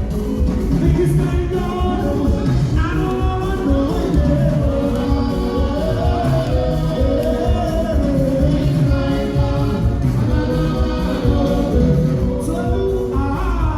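Music with singing over a steady, pulsing beat.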